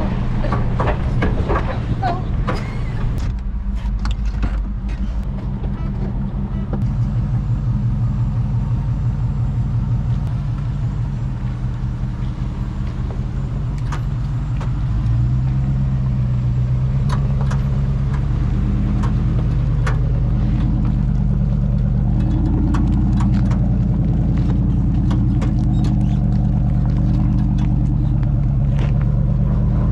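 Supercharged Range Rover P38's engine running as it drives a rough off-road trail, with knocks and rattles from the body and suspension over the bumps. About halfway through, the engine note rises and gets louder and then stays there.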